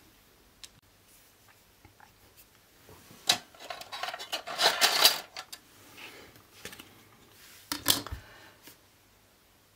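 Paper and small objects being handled on a table: a few short rustles and clicks, the loudest cluster in the middle and another near the end, with quiet stretches between.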